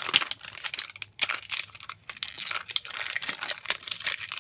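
Plastic outer wrapping of a Zuru Mini Brands capsule ball crinkling and tearing as it is peeled open along its perforation, in a rapid irregular crackle.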